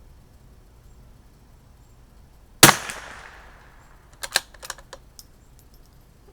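A single .22 LR rifle shot from a CZ 457 bolt-action rifle, with a short ringing decay, followed about a second and a half later by a quick run of sharp metallic clicks as the bolt is worked to eject the case and chamber the next round.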